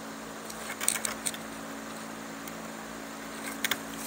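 Strands of chair cane being woven by hand over and under the seat weave, with a few light scratchy clicks about a second in and again near the end, over a steady low room hum.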